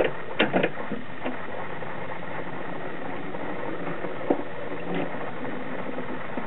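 Telefunken TW 509 record changer running its automatic cycle for a 45: a steady mechanical whir with several short clicks as the tone arm lifts from its rest and swings out to the record's edge.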